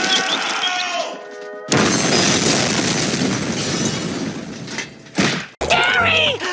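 Cartoon explosion: a sudden loud blast about a second and a half in, followed by a long noisy rumble that fades out over about four seconds. A held tone comes before it.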